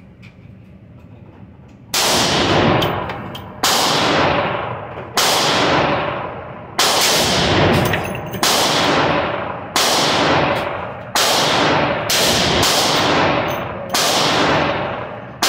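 Handgun fired slow and steady in an indoor range: about nine shots, roughly one every second and a half, starting about two seconds in. Each shot is followed by a ringing echo off the range walls.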